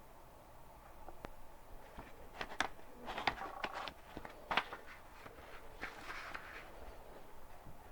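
Paper book pages being turned and flipped: a series of crisp rustles and snaps, busiest in the middle, with a smaller run of rustling near the end.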